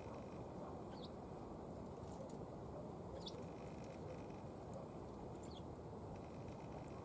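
Sparrows chirping faintly: three short high chirps about two seconds apart, with softer buzzy notes between them, over a steady low background rush.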